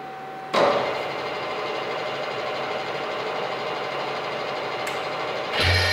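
KNUTH KBF 50 drill-milling machine switched on about half a second in, its spindle then running steadily with a dense whir of many steady tones. Near the end a second, louder machine sound joins with a strong low hum.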